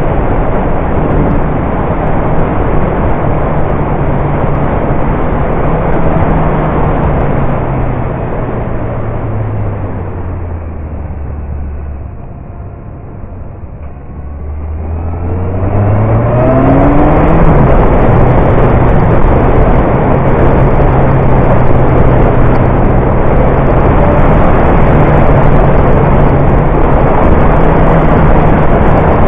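Motorcycle riding with heavy wind rush on the mount-camera microphone. The engine note and the wind fall away as the bike slows for a bend about twelve seconds in, then the revs climb again as it accelerates out and runs on steadily.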